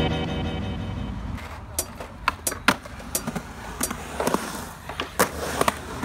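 Background music fades out about a second in. After that a skateboard rolls on concrete, with about a dozen sharp clacks and knocks of the board striking the ground.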